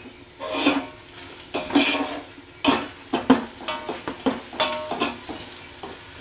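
Slotted metal spoon scraping and knocking against a large metal pot while onions, green chillies and red chilli powder are stirred in hot oil, with the oil sizzling underneath. The strokes come unevenly, several a second apart, some leaving a short metallic ring.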